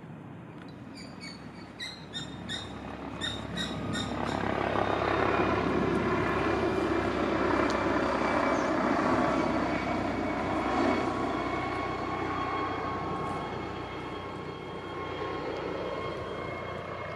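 A passing engine-driven vehicle: a broad rumble swells from about four seconds in, is loudest in the middle and slowly fades, with a few steady tones on top. A few short high chirps come before it.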